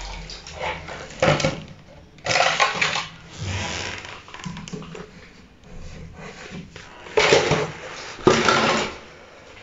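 Several short bursts of scraping and rustling, about four, from a hand handling things around a shower tray's edge.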